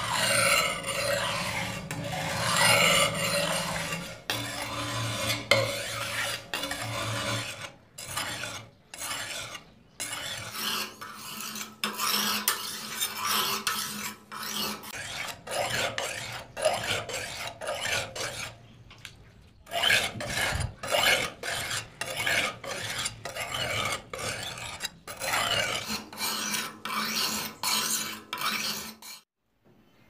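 Billhook's steel blade being whetted on a wet sharpening stone, repeated gritty scraping strokes of about one or two a second with short pauses between runs. The strokes cut off abruptly near the end.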